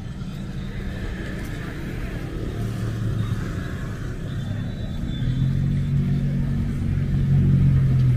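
Road traffic: a vehicle engine running with a steady low hum, growing louder about five seconds in and loudest near the end.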